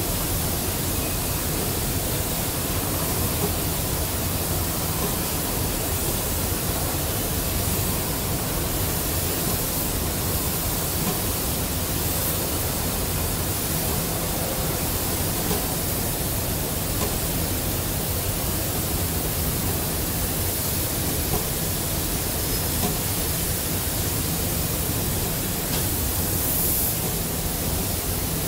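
Steady rushing hiss of a robotic paint spray booth: robot spray guns spraying paint amid the booth's airflow, over a low machine hum.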